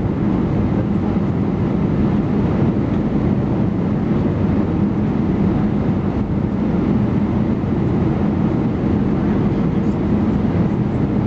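Steady engine and airflow rumble inside the cabin of an Airbus A319-131 airliner, with a constant low hum running under it.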